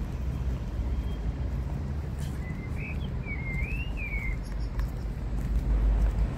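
A bird's warbling, whistled call, rising and falling, from about two seconds in until past four seconds, over a steady low rumble. A few faint clicks of high-heeled mules on tarmac come through.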